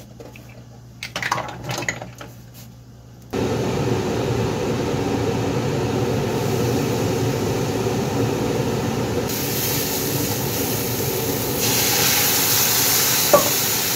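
Kitchen range-hood fan switched on about three seconds in, then running steadily. Over its last few seconds a frying hiss rises as liquid is poured onto chili paste in the hot wok.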